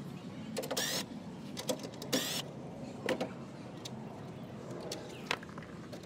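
Two brief whirs of a small cordless impact driver spinning out grille fasteners, about a second in and again about two seconds in, with scattered clicks and taps of tools and plastic trim.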